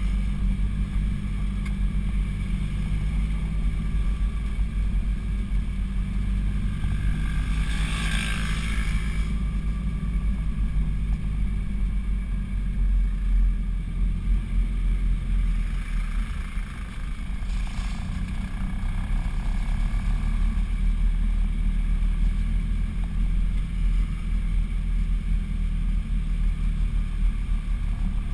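Car engine running steadily under load as the car climbs a hill, a low rumble heard from inside the cabin. A brief hiss rises over it about eight seconds in.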